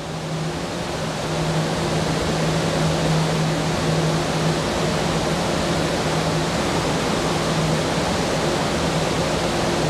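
Steady rushing background noise with a low hum underneath, swelling slightly over the first second or two.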